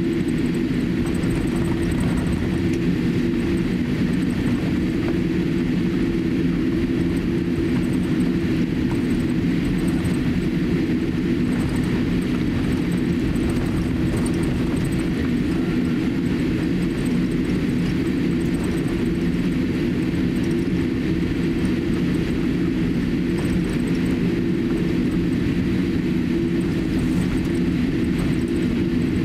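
Cabin noise of a Boeing 787-8 taxiing: a steady hum from its GEnx-1B turbofans at low taxi power and the cabin air system, with a few low droning tones that do not change.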